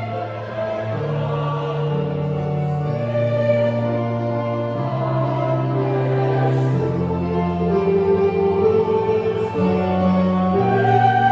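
Youth choir singing in parts, with long held chords that move to a new chord every second or two.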